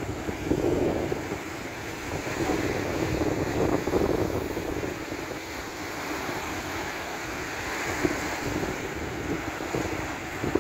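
Sea surf breaking and washing up a sandy beach among rocks, with wind buffeting the microphone.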